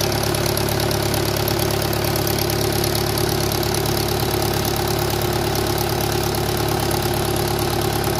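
Mahindra Yuvo 475 tractor's diesel engine running steadily while its rear tyre spins in wet mud.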